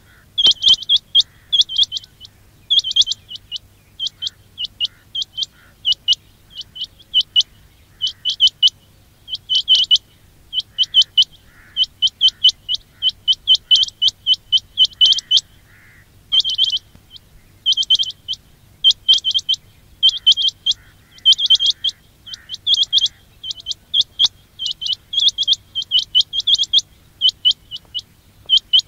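Quail (batair) calling: quick clusters of short, sharp, high-pitched notes, repeated about once a second, as used in a lure recording for trapping quail.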